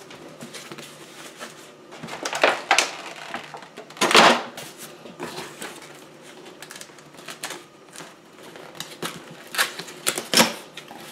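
Small plastic camera accessories and their packaging being handled: irregular clicks, knocks and rustles, the loudest about four seconds in.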